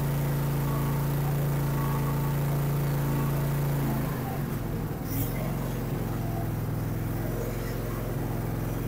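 Briggs & Stratton twin-cylinder engine of a Dixon zero-turn mower running steadily and evenly after a tune-up with a clean air filter and fresh oil, which the mechanic says sounds much better. About four seconds in the engine note shifts and drops slightly in level, then holds steady.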